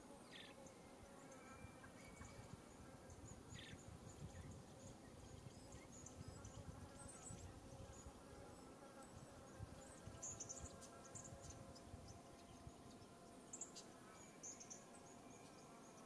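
Near silence: faint outdoor ambience with a faint steady hum and a few soft, very high chirps, most of them in the second half.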